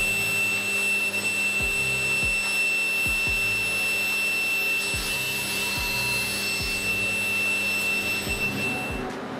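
Power drill running steadily with a high motor whine as it spins a wooden dowel through a rounding jig, then stopping about nine seconds in. A low beat of background music repeats under it.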